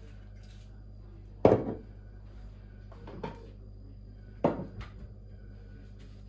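Kitchen things being handled on a counter: a few sharp knocks and clunks, the loudest about a second and a half in and another strong one about four and a half seconds in.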